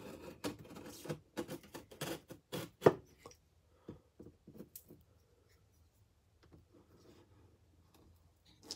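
Handling sounds from a folding knife and a cardboard shipping box: a quick run of sharp scrapes and clicks over the first three seconds, then only faint rustling, with one more click near the end.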